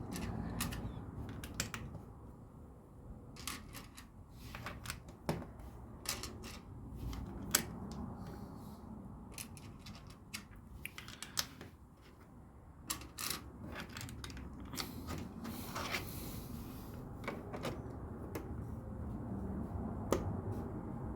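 Plastic LEGO pieces clicking and tapping as they are handled and pressed together: scattered sharp clicks, with a brief rustle about two-thirds of the way in, over a low steady background noise.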